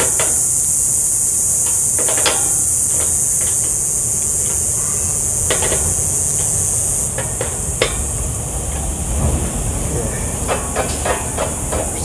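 Screwdriver working the screws of an air conditioner's sheet-metal fan lid as the fan baffle is tightened: a scatter of short clicks and scrapes, busier near the end. A loud, steady high hiss runs underneath and eases a little about seven seconds in.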